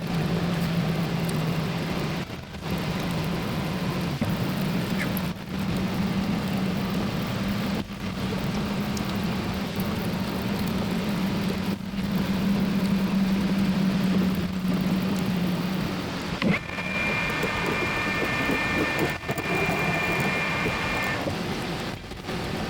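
Metal lathe turning a high-tensile steel barbell shaft: a steady rushing cutting noise over a low hum, broken by short gaps every few seconds. For about four seconds, starting roughly two-thirds of the way through, a high whine rises above it.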